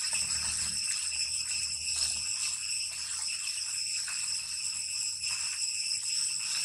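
Cicadas shrilling in a continuous, unbroken chorus, several high pitches held steady.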